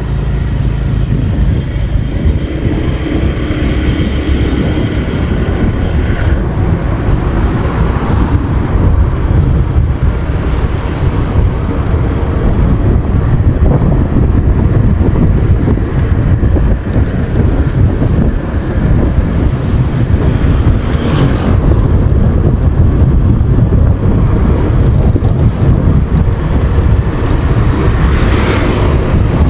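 Wind buffeting the microphone on a moving motorbike, a loud steady low rumble mixed with road and engine noise. Other motorbikes pass near the end.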